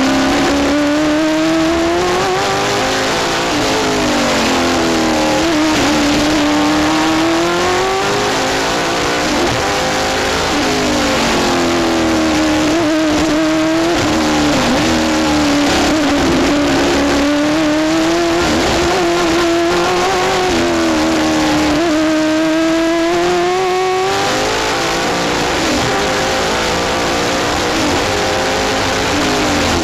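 Rover Vitesse sports sedan race car's engine at full racing effort, heard from inside the cockpit: the pitch climbs and falls again and again as the driver works up and down the gears through a fast lap, over steady wind and road noise.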